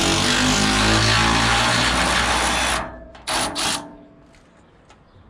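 A cordless power tool spinning out a bolt, running steadily for nearly three seconds, then cutting off and giving two short blips before falling quiet.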